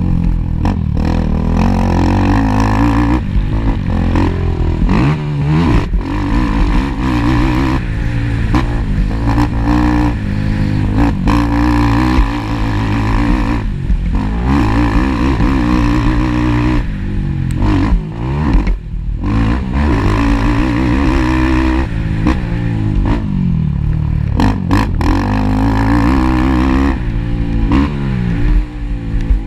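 Racing ATV engines revving hard and backing off again and again, the pitch climbing and falling every second or two.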